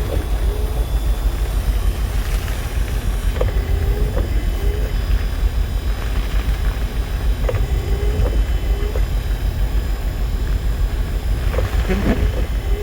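Storm wind buffeting the microphone in a steady low rumble. Clusters of short squeaky creaks come back about every four seconds.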